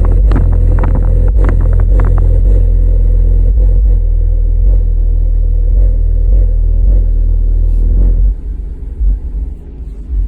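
Infinity BU-1 8-inch powered subwoofer playing loud, deep bass, with crackling, rattly clicks over it for the first couple of seconds. The bass cuts off about eight seconds in.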